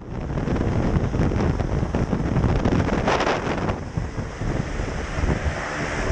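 Heavy wind buffeting the camera microphone in the propeller wash of a small single-engine jump plane running on the ground, with a brighter hissing gust about three seconds in.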